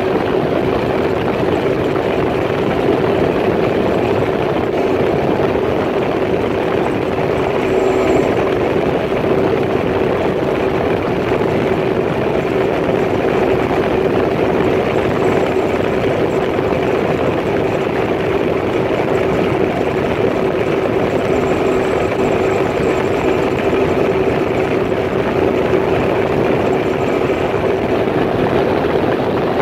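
Personal watercraft engine running at a steady cruising speed: an even drone with a constant hum, over the rush of the hull moving through water.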